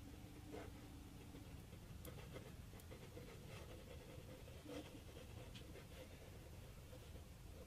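Near silence: faint room hum with a few soft ticks and scratches as wood glue is squeezed from a plastic bottle and spread onto a carved wooden piece.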